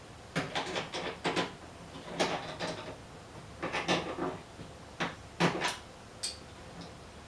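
Pliers tightening a nut on a threaded rod: short bursts of clicking and scraping, four or five times, as the pliers grip and turn the nut.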